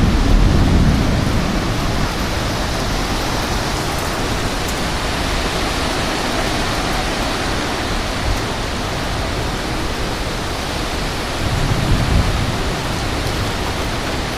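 Heavy rain and strong thunderstorm wind making a loud, steady rush, with deep low rumbling near the start and again about twelve seconds in.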